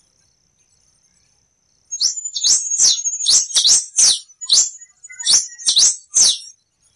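Black-and-rufous warbling finch (quem-te-vestiu) singing: a quick string of about nine sharp, loud notes, each sweeping up and down in pitch. The song starts about two seconds in, after a pause in which only a faint steady high tone is heard.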